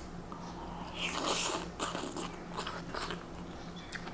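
Biting into and chewing a slice of grilled zucchini close to the microphone: a small click at the start, then several short, wet chewing bursts from about a second in.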